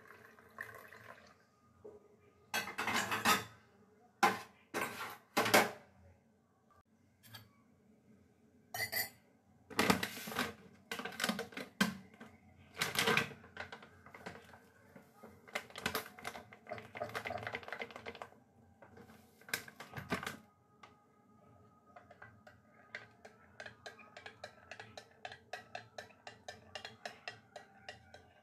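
Kitchen clatter of dishes and utensils being handled and set down, in uneven bursts. In the last several seconds a spoon stirs in a glass cup, clinking against its sides in a quick, steady rhythm.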